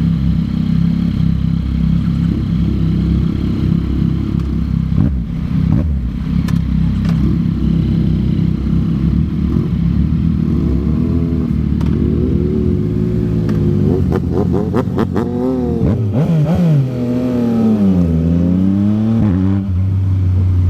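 Yamaha MT-09's three-cylinder engine through a Yoshimura R11 exhaust, running steadily at first. From about ten seconds in it revs up and drops back several times, with a few sharp cracks in the middle of the revving.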